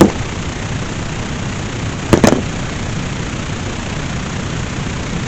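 Steady hiss of radio static from a receiver between broadcasts, broken by a sharp click at the start and a quick double click about two seconds in.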